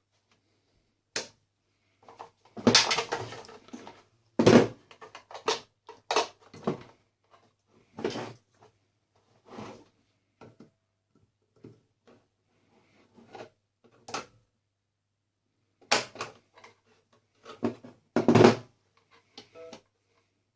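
Irregular knocks, clatters and scrapes of a coffee maker's parts being handled and pulled apart by hand, with the loudest knocks about four and a half seconds in and near the end.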